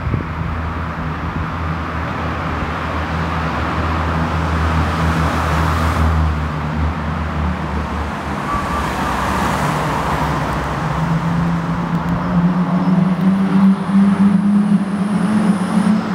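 Vauxhall Astra Mk4 with a Subaru-style ('Scooby') aftermarket exhaust: a low steady engine note, then from about eleven seconds a rising, loudening exhaust note as the car accelerates hard toward the microphone, echoing in the concrete underpass.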